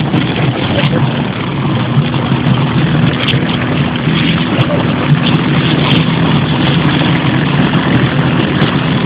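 150 cc quad (ATV) engine running steadily as it tows a rider on a rope, under a rough rushing noise.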